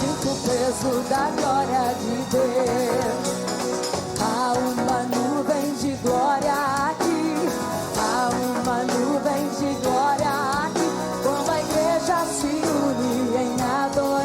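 Live gospel worship song: a female voice sings long, wavering wordless runs over a full band.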